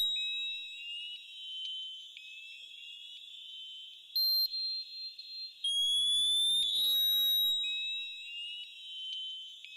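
Sonar-like electronic ping: a high, steady tone with rising chirps beneath it, the pattern repeating after about seven and a half seconds, with a short harsher burst about four seconds in. It is a look-alike of the unexplained loud ping heard from the sea, which is taken to have been a submarine's very loud sonar.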